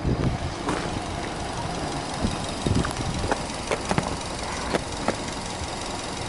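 Subaru Legacy B4 2.0GT's turbocharged flat-four boxer engine idling steadily, heard from the open engine bay, with a few light ticks scattered through it.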